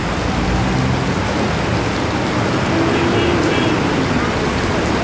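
Heavy rain pouring onto a wet street, a steady loud hiss, with the low hum of passing traffic underneath.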